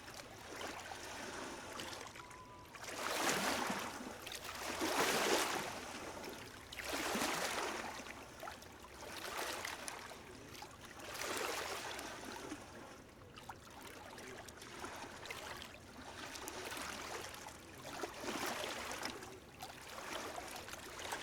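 Small sea waves lapping gently at the shore, a wash of water swelling and falling back every couple of seconds.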